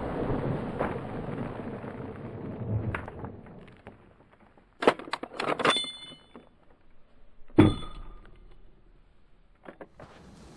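The echo of a .30-30 rifle shot rolling away and fading over about four seconds. Then the lever of a Marlin lever-action carbine is worked in a quick run of metallic clicks and clacks with a brief metallic ring. A single sharp metal clack with a short ring follows about two and a half seconds later.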